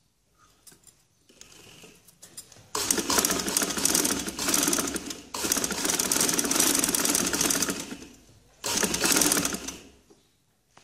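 Black vintage sewing machine stitching through cloth, sewing a second row of stitching. Light handling clicks come first; the machine starts about three seconds in, runs for about five seconds with a brief break partway, then gives one more short burst of about a second near the end.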